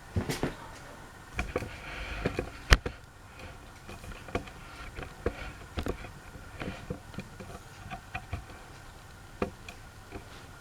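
Scattered clicks and light knocks at an uneven pace, with one sharp click about two and a half seconds in.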